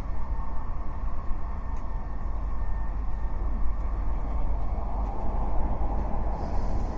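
Eerie wind ambience: a steady, low, rumbling rush of wind with a faint thin whistle above it.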